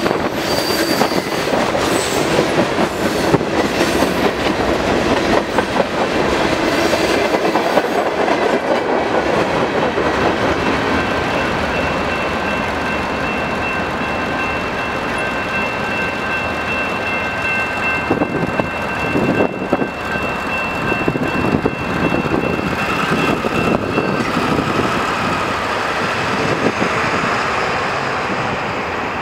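Freight train's last cars rolling past, wheels clicking over the rail joints for the first several seconds, then a steadier rolling rumble as the end of the train moves away. A steady high tone holds through the middle and eases off near the end.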